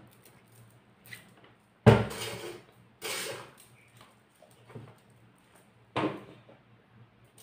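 Tarot cards being handled on a table: three short handling noises, the loudest a sharp knock about two seconds in, another about a second later and one near six seconds.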